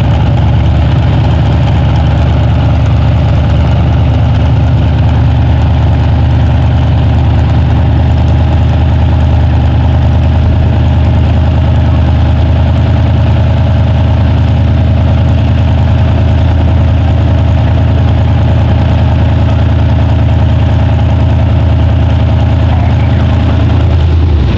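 Loud engine idling steadily at a constant low pitch, with no revving, cutting off abruptly at the very end.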